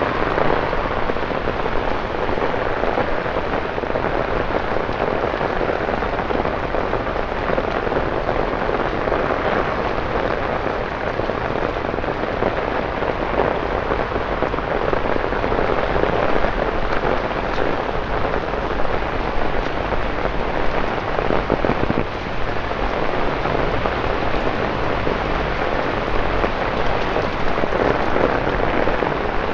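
Torrential rain pouring steadily onto wet city streets and pavements: a dense, even hiss of falling water.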